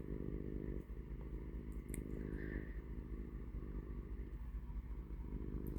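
Domestic cat purring close up: a steady, rapidly pulsing low purr that shifts in stretches of about a second as the cat breathes in and out.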